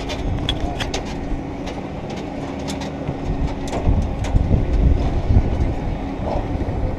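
Steady low machine hum of an airport apron beside a parked jet airliner, with footsteps clattering down metal boarding stairs. Heavy low rumbling on the microphone peaks about halfway through.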